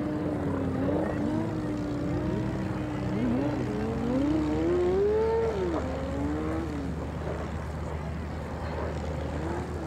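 A PBY Catalina flying boat's two Pratt & Whitney R-1830 radial engines and propellers drone in flight. Their tone wavers, rises to a peak about five seconds in, then falls away near seven seconds, over a steady low rumble.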